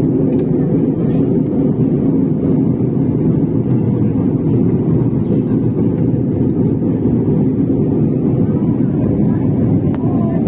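Airliner cabin noise during descent: a loud, steady rumble of engines and rushing air heard from inside the passenger cabin.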